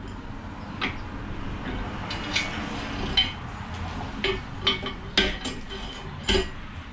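Red engine stand being turned to rotate a bare D16 short block: a series of irregular metal clanks and knocks from the stand's rotating head and its steel bar, about eight in all, the loudest near the end.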